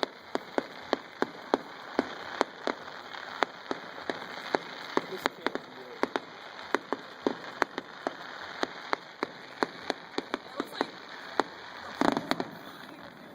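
Fireworks going off: a run of sharp, irregular pops and cracks, several a second, with a denser flurry near the end.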